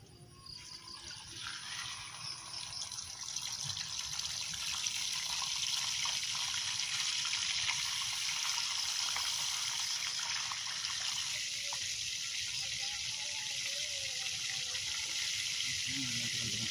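Food frying in a pan on a camp stove: a steady sizzling hiss that builds over the first few seconds and then holds.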